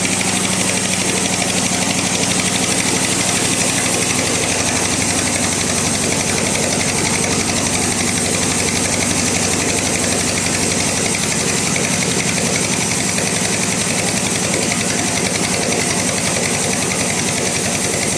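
Bandsaw running steadily, sawing through a log, a loud even mechanical noise with a fast pulse.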